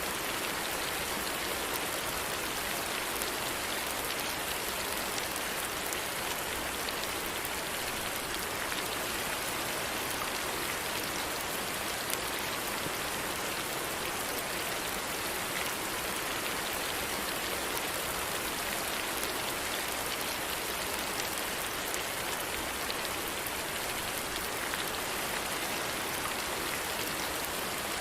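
Steady rain falling: an even hiss with small scattered drop ticks, unchanging in strength.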